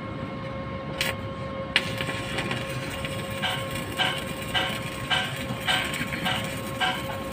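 A steady machine hum with a constant tone. Over it, a sharp click comes about a second in, and from about three seconds in a repeated rasping stroke comes roughly twice a second, from hand work on the refrigerant pipe installation.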